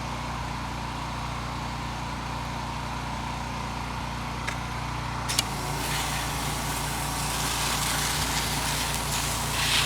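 Pressure washer's engine running steadily. A couple of sharp clicks about four and a half and five and a half seconds in, after which a hiss of water spray comes in and grows, and the engine note changes.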